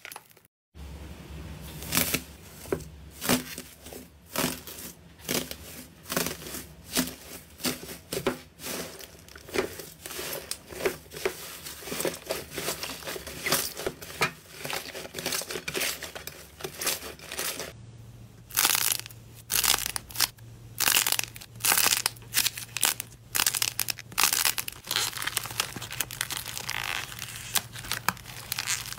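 Hands squeezing, kneading and pulling slime, making repeated crackling, crinkly tearing sounds, roughly one or two squeezes a second. A steady low hum runs under it, and the sound changes character about two-thirds of the way in as a new clip starts.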